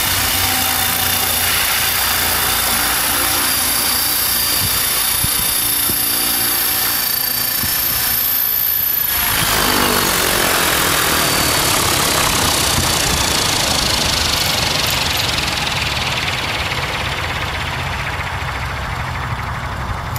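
Electric GAUI 550 RC helicopter in flight, its motor and drive giving a steady high whine over the rotor noise. About nine seconds in, the sound changes to the rotor spinning down on the ground: the whine is gone and a whooshing rotor noise slowly fades.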